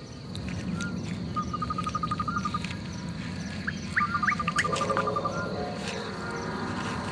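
Wildlife ambience of insect and bird calls: short trains of rapid pulses at one pitch repeat several times, and a few quick upward chirps come about four seconds in.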